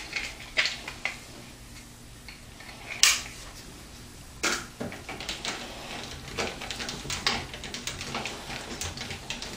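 Small metal clicks and clinks of screws and a screwdriver being worked into the radiator's mounting holes in a steel PC case. There is one sharper click about three seconds in, and a run of quick light ticks in the second half as the screws are turned.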